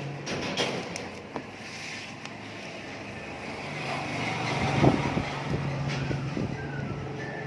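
Motorcycle engine running with a steady low hum that drops back and picks up again about halfway through, with a few sharp knocks and clicks, the loudest just before the five-second mark.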